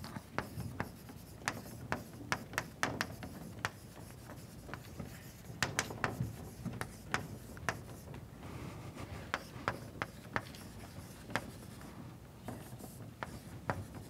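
Chalk writing on a blackboard: irregular sharp taps and short scratches as letters are written.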